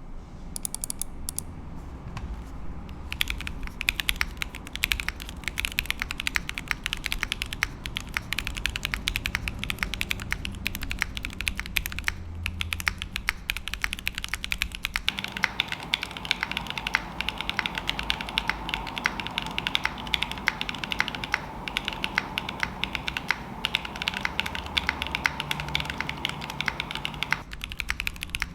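Steady fast typing on a custom mechanical keyboard with MOMOKA Elder God Priest keycaps: a dense, continuous run of key clacks. The switches are Cherry HG Black housings with TKD v1 stems and lubed 63.5 g springs, mounted on an aluminium plate with no foam.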